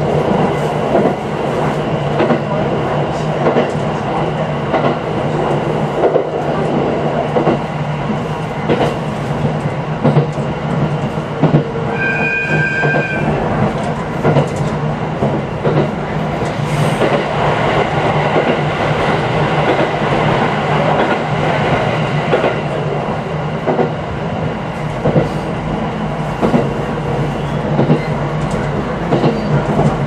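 JR East 701 series electric train running along the track, with a steady hum and frequent clicks of the wheels over rail joints. A brief pitched tone lasting about a second sounds about twelve seconds in.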